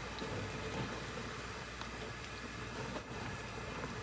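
Thick miso soup heating in an aluminium pot on a gas burner as it is brought to a boil: a faint steady hiss with soft bubbling, and a few light taps of a metal ladle stirring in the pot.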